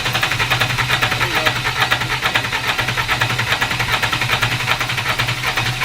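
Turbodiesel engine of an amphibious vehicle turning over with a fast, even chugging as it is coaxed back to life after hydrolocking: its cylinders and turbo had taken in water.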